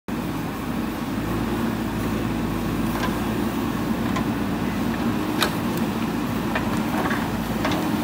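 JCB 3DX backhoe loader's diesel engine running steadily while the backhoe digs soil. Several short, sharp clanks come from the backhoe arm and bucket, the loudest about five and a half seconds in.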